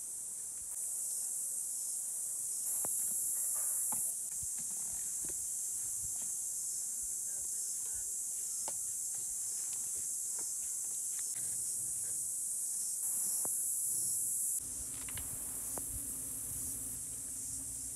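Insects singing in a steady, high-pitched summer chorus, with scattered light ticks and taps. A low hum joins about fifteen seconds in.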